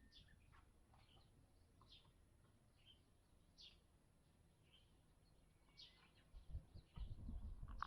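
Faint bird chirps, short high calls repeating about once a second, with a run of low thumps near the end.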